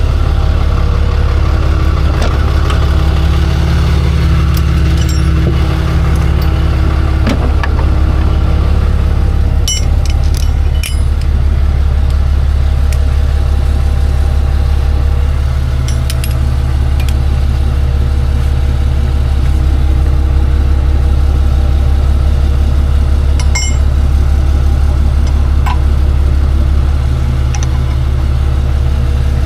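Tow truck's engine idling steadily, with a few scattered metallic clinks and taps.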